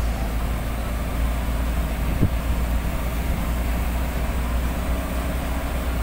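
Steady engine and road rumble from inside a moving vehicle on a winding concrete road, with one brief knock about two seconds in.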